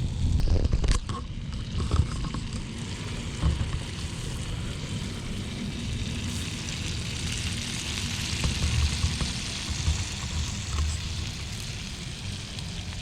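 Wind buffeting the microphone in gusts over a steady hiss, with a few knocks in the first couple of seconds.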